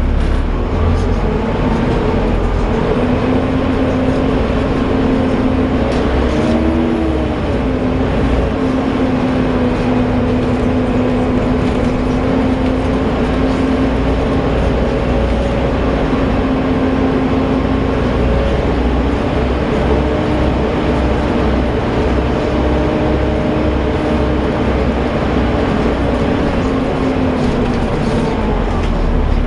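Volvo B7TL double-decker bus under way: its engine and driveline run with a steady vacuum-cleaner-like whine over a low rumble. The whine holds a fairly even pitch, briefly rising and falling about seven seconds in and shifting slightly as the bus changes speed.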